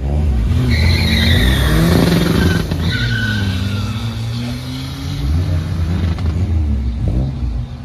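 Drag cars launching off the start line and accelerating hard down the strip, engines revving up and shifting through the gears, with a high squeal in the first few seconds. The sound is loudest at the launch and eases as the cars pull away.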